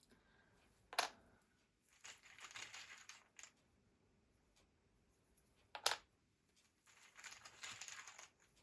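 Rune pieces being handled and cast: two sharp clicks of pieces striking each other or the table, about a second in and again near six seconds, with soft rustling of hands among them in between.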